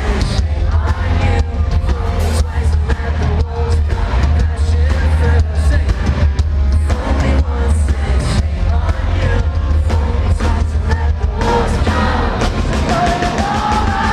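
Pop-punk band playing live, with loud drums, a heavy bass line and singing. The bass drops out near the end.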